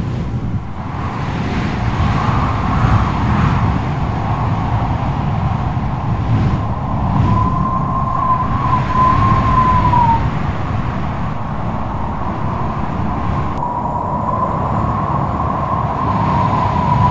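Strong wind blowing, with a low buffeting rumble and a wavering, howling whistle that rises in about seven seconds in, fades, and returns near the end.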